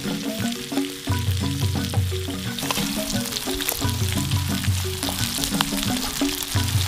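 Grasshoppers deep-frying in hot oil: a steady sizzle with frequent sharp crackles, the vigorous bubbling that means they are not yet cooked through. Background music with a repeating bass line plays underneath.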